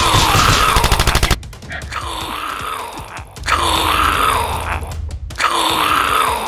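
A rapid burst of automatic gunfire for about the first second and a half, then a zombie moan that rises and falls in pitch, played three times over in the same shape.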